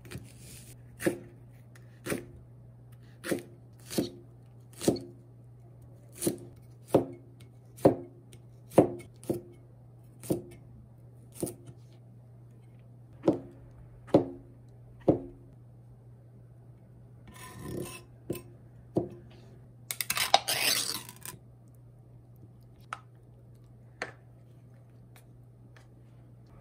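Knife chopping on a cutting board in slow single strokes, about one a second, with short pauses. About twenty seconds in there is a short, louder scraping rush, then a few more strokes.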